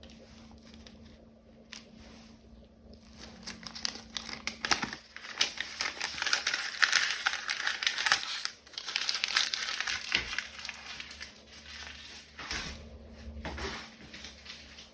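Plastic being picked and broken out of the stem cavities of 3D-printed keycaps: a dense run of small crackles and snaps. It starts a few seconds in, is heaviest in the middle, then thins out.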